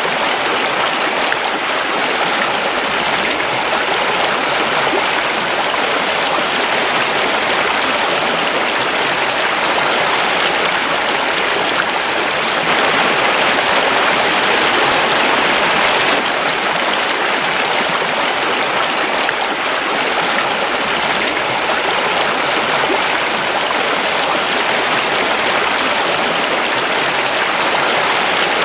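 Forest river flowing: a steady, dense rushing of water, swelling slightly for a few seconds midway.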